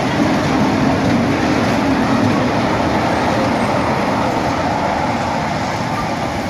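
Steady vehicle-like rumble and rushing noise, with a low hum that fades out after about two and a half seconds.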